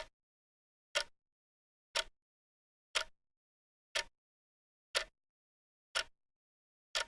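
Clock ticking: a sharp, even tick once every second, eight ticks in all, with dead silence between them.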